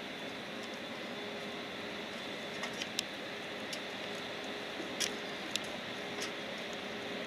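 Boeing 737 MAX's CFM LEAP-1B turbofan engines running at low power as the jet rolls slowly: a steady hiss with a faint whine. A few faint clicks come in the middle.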